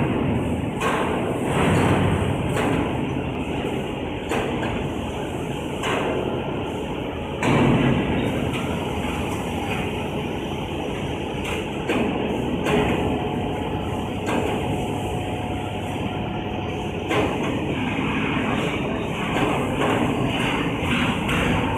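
Large hydraulic cold forging press running through its stroke: a steady hydraulic power-unit and machinery noise, with several sharp metallic knocks, the loudest about 2 and 7.5 seconds in.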